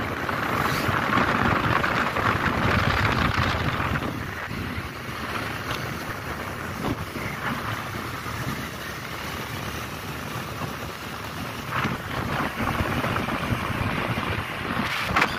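Wind rushing over the microphone with road and engine noise from a moving vehicle, steady throughout and louder in the first four seconds, with a couple of brief knocks near the end.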